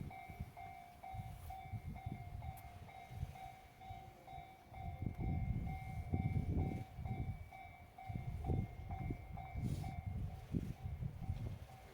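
Japanese level-crossing warning bell ringing, an electronic ding repeating about twice a second, while a train rumbles past on the tracks, louder from about halfway through.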